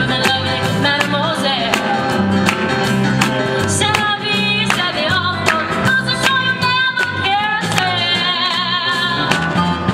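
Live acoustic band music: a woman singing a melody with vibrato over several strummed acoustic guitars.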